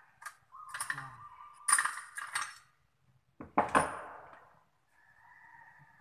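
Metal clinks and clanks of hand tools working the pipe fittings at a split-type air conditioner's outdoor-unit service valves: several quick clinks, then one louder clank with a short ring about three and a half seconds in.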